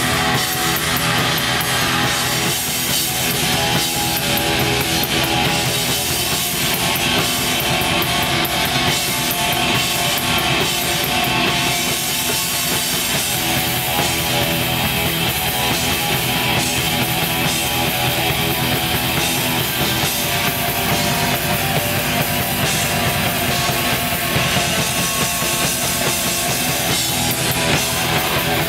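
Live black metal band playing: distorted electric guitars over drum kit, a dense, unbroken wall of sound.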